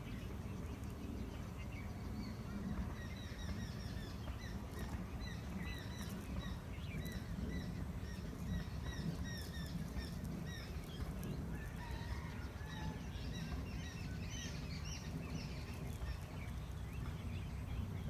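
Birds chirping: many short, high chirps overlapping one another, over a steady low rumble.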